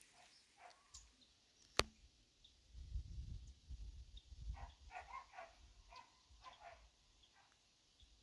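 Birds chirping faintly in short scattered calls, with one sharp click about two seconds in, the loudest sound, and a low rumble a second later.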